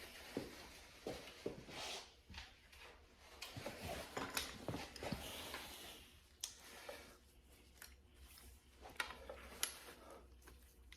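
Faint small metallic clicks, scrapes and rustling of hands working on an FA20 engine's timing chain tensioner: its lever is lifted and pushed over to release chain tension, with a few sharp clicks in the second half.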